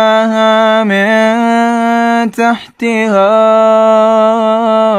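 Male Quran reciter chanting in melodic tajweed style, holding long drawn-out notes with ornamental turns in pitch, with a brief breath break about halfway through.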